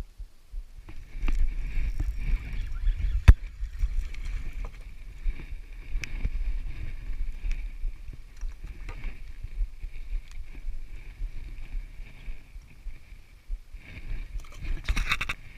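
Water and wind noise around a fishing kayak, with a steady high hum throughout. There is one sharp knock about three seconds in and a few small clicks and knocks against the hull.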